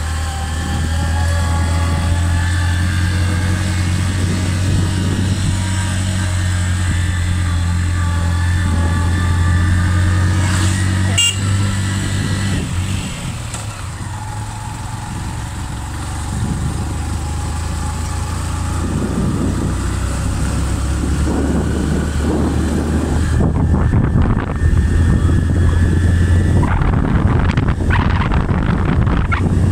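Motorcycle engine running steadily while riding along a dirt road. It eases off about twelve seconds in, then picks up again with a rough rumbling noise over it in the second half.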